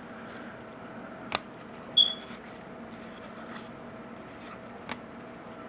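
Quiet room hum with a couple of faint clicks from trading cards being handled. A short high-pitched squeak comes about two seconds in.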